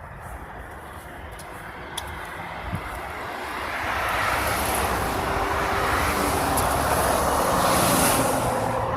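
Motor vehicle noise, engine and rushing road or air noise, growing steadily louder over several seconds and peaking near the end.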